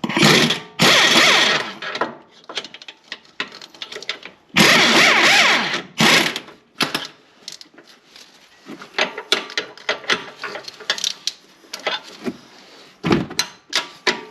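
A power tool run in bursts, three of them in the first six seconds, driving out the 18 mm lower control arm bolt. It is followed by a string of light metallic clicks and taps.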